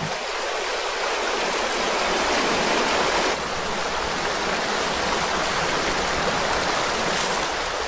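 Rushing water of a river running high, tumbling over rocks as a steady hiss that shifts slightly in tone a little over three seconds in.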